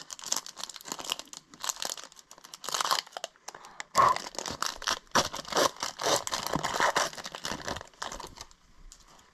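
Foil wrapper of a hockey card pack crinkling and tearing as it is ripped open: a dense, uneven run of crackles, loudest about halfway through.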